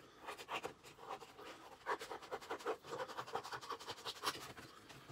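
Scissors cutting through folded coloured card, a run of irregular snips with the card scraping and rustling.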